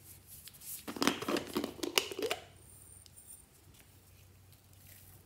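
A plastic bottle crackling and clicking in a dense burst of about a second and a half as it is gripped and its cap twisted off.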